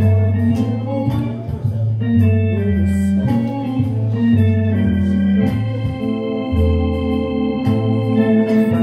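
Hammond organ playing a tune: held chords over sustained bass notes that change every second or so.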